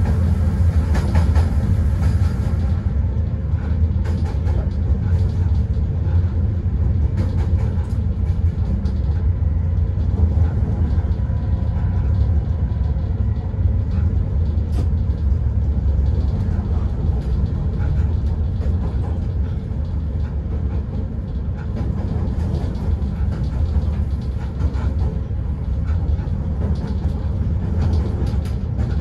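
Newag Dragon locomotive running along the track, heard from the cab as a steady low rumble with occasional faint clicks.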